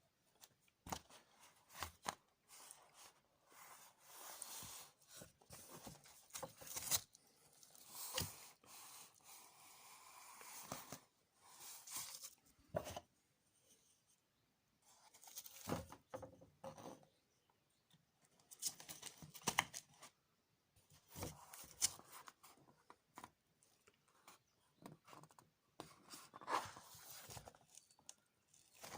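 Irregular scraping and rasping, with scattered sharp clicks and knocks, from hand work with tools and materials.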